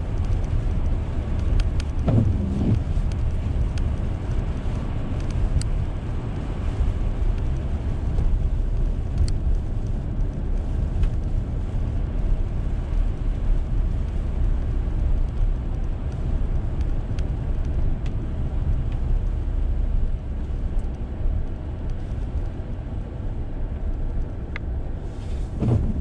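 Steady road noise inside a moving car: tyres running on a slushy, snow-covered road with the engine's low hum, and a few light ticks. The windshield wipers sweep once near the end.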